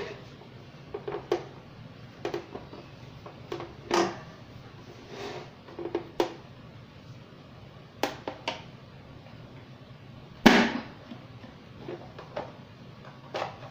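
Plastic push-down vegetable chopper clicking and knocking as she handles it and presses peeled potatoes through its blade grid to cut finger chips. The sharp knocks come every second or two, the loudest about ten seconds in.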